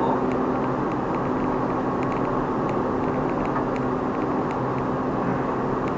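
Steady road and engine noise of a car cruising on a highway, heard from inside the cabin, with a steady low hum running under it.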